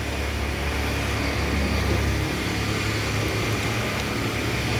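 Steady machine noise with a low hum, which changes a little about two seconds in.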